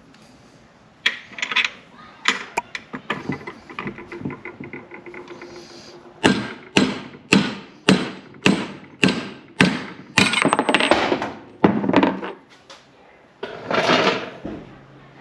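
Hammer blows on metal: a few scattered knocks and clinks, then a steady run of sharp strikes about two a second starting around six seconds in.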